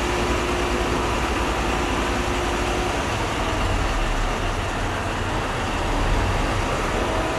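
Engine running steadily: a low hum under a constant mechanical din, with a faint whine that fades out about three seconds in.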